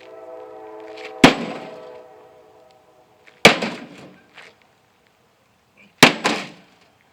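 Heavy blows striking a microwave oven's sheet-metal casing. The struck cabinet rings with a steady metallic tone that fades over the first two seconds or so. There are sharp impacts about a second in and about three and a half seconds in, then a quick double strike near the end.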